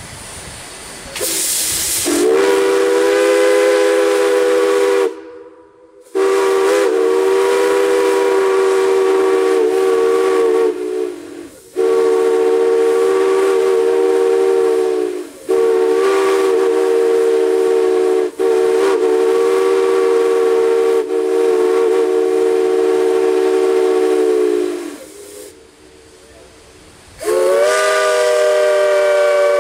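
Steam chime whistle blowing a chord of several close notes in about five long blasts of a few seconds each, the pitch wavering now and then. A short hiss of steam comes just before the first blast.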